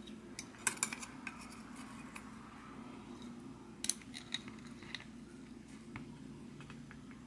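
Light metallic clicks and clinks of an adjustable wrench and a thin cone wrench knocking against the lock nuts on a bicycle hub axle as the wrenches are set to snug the nuts together. There are a few separate taps around one second in and again about four to five seconds in, over a faint steady hum.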